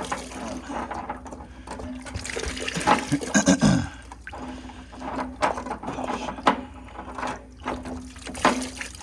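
Water gushing and splashing out of the lower heating-element port of an electric water heater tank that is not yet fully drained, loudest about three to four seconds in.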